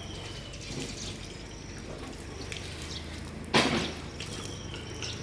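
Water dripping and trickling, with one sharp knock about three and a half seconds in.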